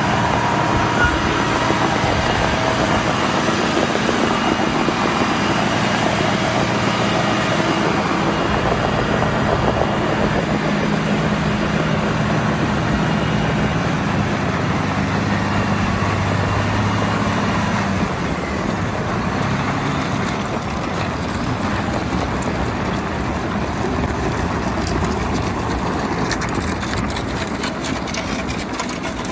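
Heavy diesel truck engines running steadily under load as a dump truck tows a semi-truck on snow. The sound drops a little and changes about 18 seconds in.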